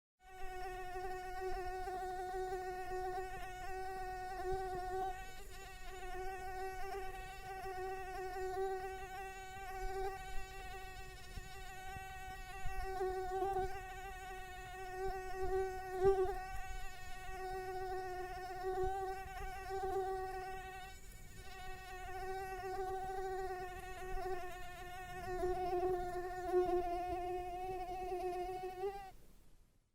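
Mosquito buzzing in flight: a continuous high-pitched whine that wavers slightly in pitch and swells and fades in loudness, stopping near the end.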